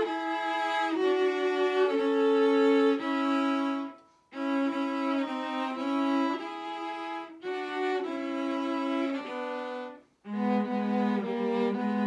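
Viola and cello playing a duet of sustained bowed notes in slow phrases. The music breaks off briefly twice, about four seconds in and about ten seconds in, before the next phrase.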